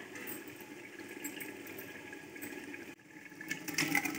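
A faint steady hiss, then about three and a half seconds in a steel ladle starts scraping and clinking against a steel pressure cooker as cooked dal is spooned out of it.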